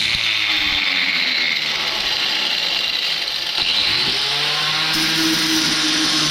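Angle grinder grinding steel, running steadily under load. Its motor pitch rises and settles about four seconds in.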